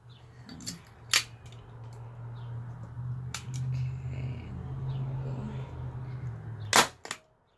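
Stanley Bostitch manual staple gun firing staples through fabric into a wooden chair seat: two loud sharp snaps, about a second in and near the end, with a few lighter clicks between.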